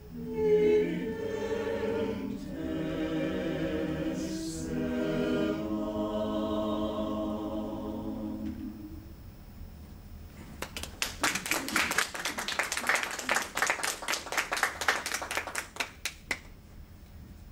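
Mixed chamber choir singing a cappella, closing on a held chord that fades out about nine seconds in. After a short pause, the audience applauds for about six seconds, then stops.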